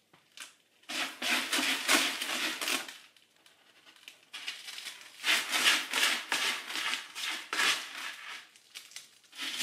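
A cat pawing and digging in Cat Step silica gel crystal litter, the granules rustling and crunching. There are two bouts of a couple of seconds each, with a pause between.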